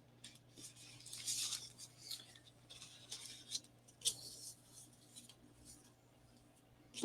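Faint, scattered rustling and light taps of paper craft pieces being handled and pressed together.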